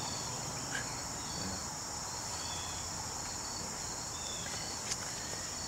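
Insects, crickets, making a steady high trill, with short chirps repeating evenly underneath. A single sharp click comes near the end.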